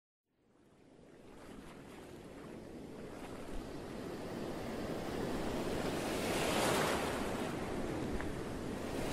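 Ocean surf: a rushing wash of waves that fades in from silence, swells to a peak about two-thirds of the way through, then eases off a little.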